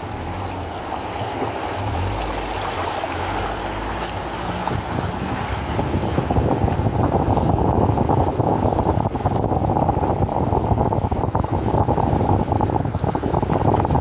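Four-wheel drive climbing a rocky track: engine and tyres working over the rough ground, with wind buffeting the microphone held out of the side window. It gets louder from about six seconds in.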